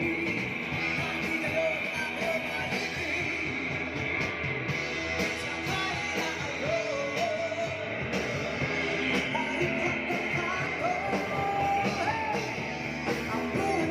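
A band playing a rock-and-roll style song with a singer, amplified through a PA system.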